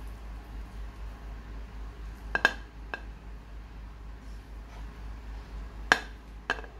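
Serving spatula knocking against the cooking pot and a plate as cooked biryani rice is scooped out: a few sharp clinks, two close together about two and a half seconds in, another just after, and the loudest near six seconds.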